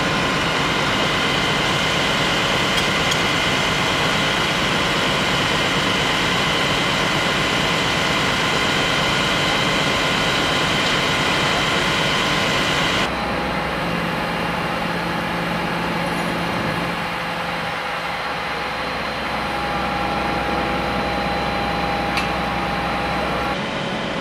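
Heavy fire truck engines running steadily, a constant drone with several steady whining tones. The mix changes abruptly about halfway through.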